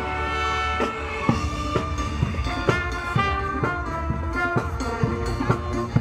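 Marching band playing a brass tune: trumpets, trombones, saxophones and sousaphone over a steady drum beat of about two strikes a second.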